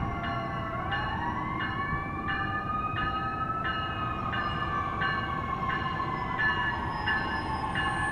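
Metra Electric bilevel electric multiple-unit train passing, its traction motors whining in a siren-like glide that rises over the first few seconds and then slowly falls. Under the whine there is a steady rumble with a regular clack about every half second.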